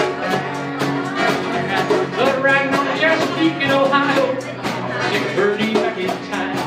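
Live acoustic guitar and djembe playing an upbeat country-style train song, the drum keeping a steady beat, with a man singing through the middle.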